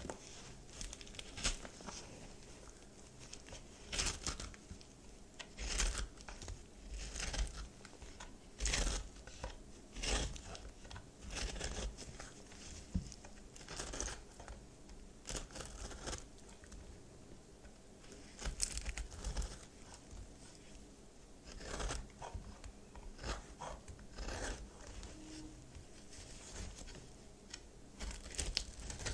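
Microwave-puffed baby soap being cut and crushed, with dry crunching and crumbling in irregular strokes separated by short pauses.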